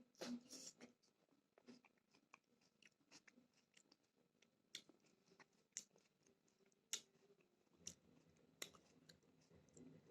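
Faint wet chewing of a raw tomato: scattered soft mouth clicks, with a few sharper ones about five, six, seven and nine seconds in.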